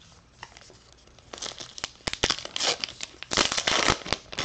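A Topps baseball card pack wrapper being torn open by hand, crinkling and tearing. It starts about a second in and is loudest near the end.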